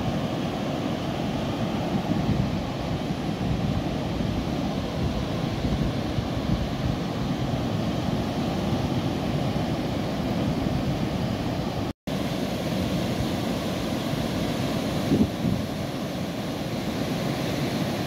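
Ocean surf breaking on a sandy beach, a steady rush of waves. It cuts out for an instant about two-thirds of the way through.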